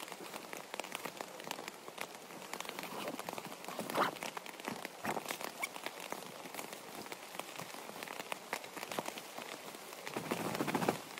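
Rain pattering on a nylon tent, mixed with the rustle of the tent's mesh door fabric being handled; a sharper rustle about four seconds in and a louder, fuller one near the end.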